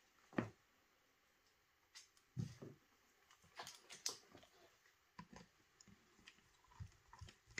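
Faint, scattered clicks and light taps of small tools and metal parts being handled while the paintball marker is put back together.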